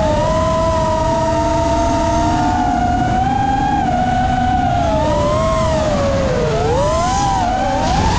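FPV quadcopter's brushless motors and propellers whining in several close tones. The tones hold fairly steady for about five seconds, then rise and fall as the throttle changes through a manoeuvre, over a low rushing of wind and prop wash.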